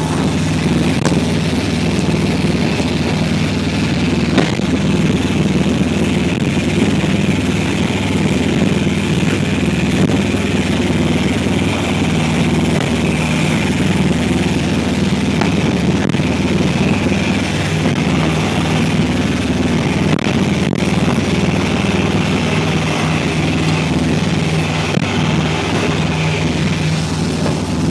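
Boat engine running at a steady speed, a constant low hum heard on board.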